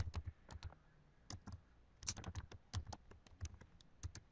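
Computer keyboard being typed on: faint key clicks in short, irregular runs as a name is entered.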